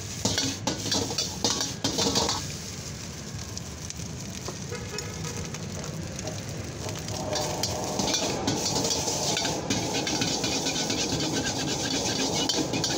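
Metal ladle scraping and clanking against an iron wok while fried rice sizzles and is stir-fried and tossed. The scraping eases off for a few seconds after the start and picks up again about halfway through.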